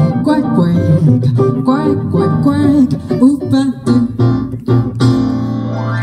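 Live jazz trio with double bass playing the closing bars of a song: quick picked notes, then a final chord held and ringing out about five seconds in.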